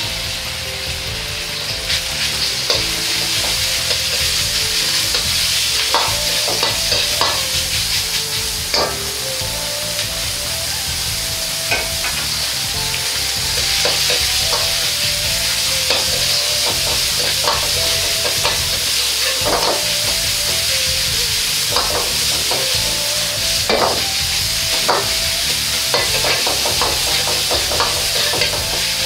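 Ground meat sizzling in hot oil in a wok, with a sharp burst as it goes in at the start. A metal wok ladle knocks and scrapes against the wok again and again as the meat is broken up and stir-fried.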